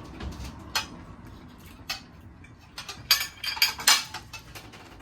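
Sharp clicks and light clatter from handling tableware and food while eating. There are a few single clicks, then a quick flurry of clicks and rattles about three seconds in.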